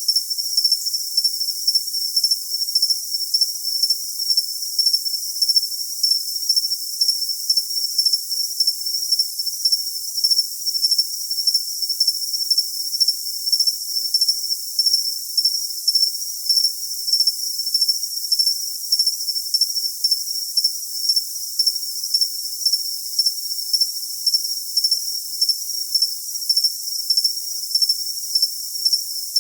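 Cricket chirping steadily: a high-pitched chirp repeating evenly about two to three times a second, with no low sounds at all.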